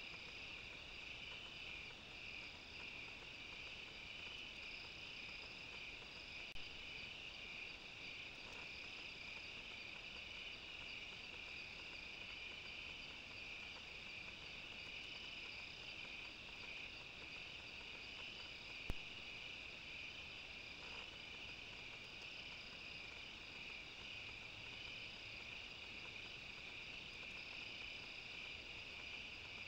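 A steady, high-pitched chorus of night insects trilling without a break, with one sharp click about two-thirds of the way through.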